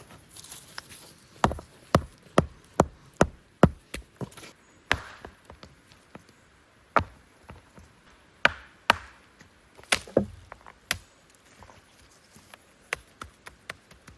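Wood being chopped with a blade: a quick run of about six sharp blows a couple of seconds in, then slower, irregular strikes.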